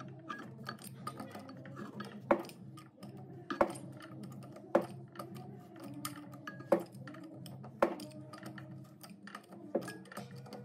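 Metal tools and engine parts being handled, giving a series of sharp clinks and knocks roughly one to two seconds apart, over soft background music.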